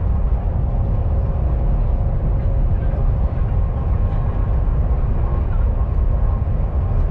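Steady low rumble of a KTX high-speed train heard from inside a passenger car while it runs at speed, with a faint steady hum above it.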